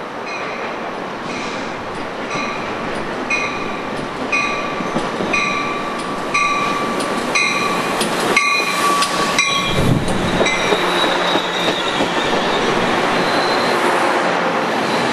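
Amtrak bilevel passenger train arriving with its cab car leading: a bell dings about once a second and a steady rail whine grows as the train nears. About ten seconds in, the front car reaches the platform with a low rumble, and the steady rush of the double-deck cars going by follows.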